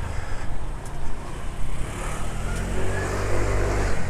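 A motor vehicle's engine passing close by, growing louder over the second half over a constant low rumble of traffic, then cutting off abruptly.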